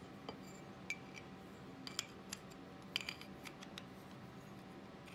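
Light metallic clicks and clinks of small aluminium pocket hole jig parts, the drill guide block and an angle bracket, being handled and fitted together. A scattering of faint taps, the clearest about one, two and three seconds in.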